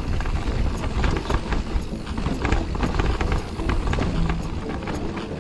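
Mountain bike descending a rough dirt and rock trail: tyres crunching over the ground, with many quick irregular clicks and knocks as the bike rattles over bumps, and wind buffeting the bike-mounted camera's microphone.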